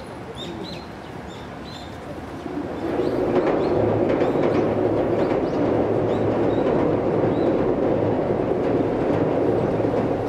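Electric passenger train crossing a steel girder railway bridge: a loud rumble that builds about two and a half seconds in and holds, with a steady low hum beneath it. Birds chirp a few times in the first seconds.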